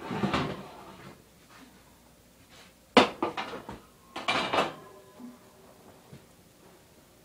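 Metal clatter at an open oven as a pumpkin half is set in: a rattle at the start, a sharp clank about three seconds in with a few smaller knocks after it, and another clatter about a second later.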